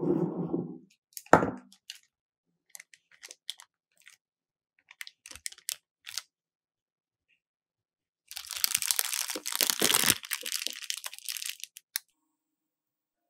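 A silicone spatula working thick whipped cream in a glass bowl, with a sharp knock about a second in, then scattered small clicks. About eight seconds in, a clear plastic piping bag crinkles and rustles for about four seconds as it is handled and filled.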